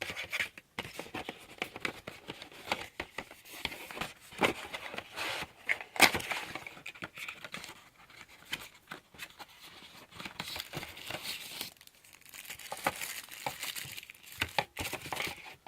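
Plastic packaging crinkling and rustling as it is handled and torn open, with irregular clicks and one sharp snap about six seconds in.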